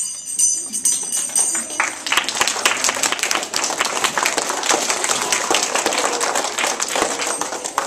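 Audience applauding: many hands clapping in a dense patter that swells about two seconds in.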